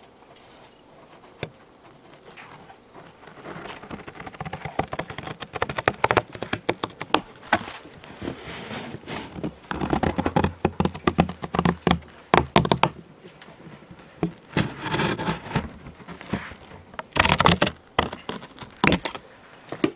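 Scissors cutting through a Funko Pop's cardboard window box, separating a side panel from the front: many crisp snips and crunches of cardboard, with handling scrapes and knocks. It starts faint and builds, loudest in the middle and again near the end.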